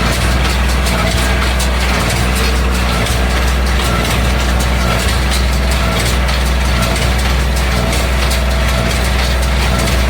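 LS 232 tractor's diesel engine running steadily under load while driving a New Holland Hayliner 68 square baler, with a fast, uneven clatter of mechanical clicks from the baler over the engine's low hum.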